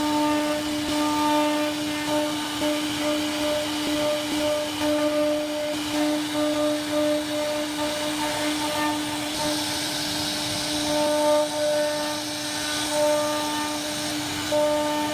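CNC router spindle running with a steady whine while its bit carves into a solid wood panel. Higher tones come and go over the whine as the bit cuts.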